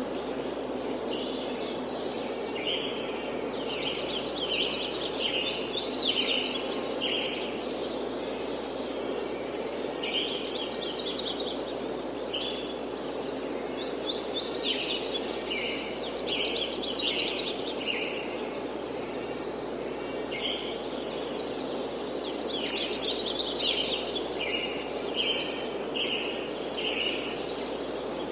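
Songbirds singing in bouts of quick, repeated chirping phrases, coming and going every few seconds, over a steady hiss of light wind.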